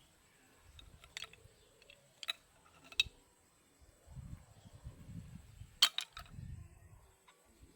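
Close-up eating sounds of a person eating seafood: a few sharp clicks and cracks, the loudest about six seconds in, with low chewing and handling noise close to the microphone in the second half.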